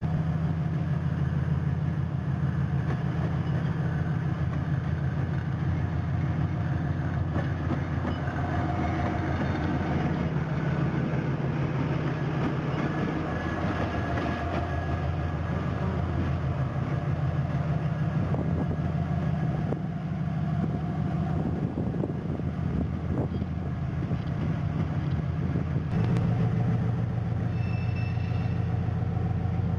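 2TE10U diesel locomotive running with a steady low drone as a passenger train pulls out. The engine note shifts and strengthens about 26 seconds in.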